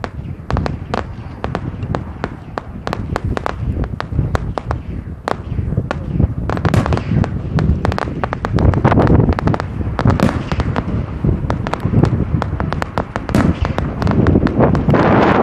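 Fireworks display: a rapid, uneven string of sharp bangs and crackles from shots being fired and bursting, growing louder and denser about halfway through.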